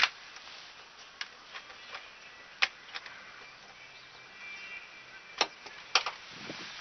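Wire cutters snipping the tails off plastic cable ties: several sharp clicks spaced irregularly, a second or more apart.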